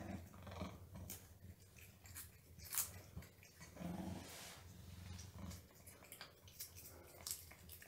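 A cat greedily licking and gulping a lickable paste treat: faint smacking and clicking, with a low growl-like rumble from the cat, "like an engine".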